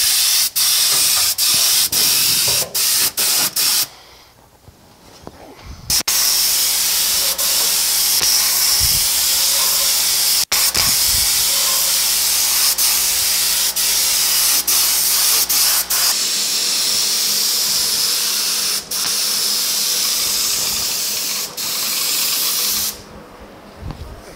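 Side-cup air spray gun spraying rust converter paint: a loud, steady hiss of compressed air and atomised paint. It is cut short several times by trigger releases in the first few seconds, pauses for about two seconds, then runs as one long pass that stops about a second before the end.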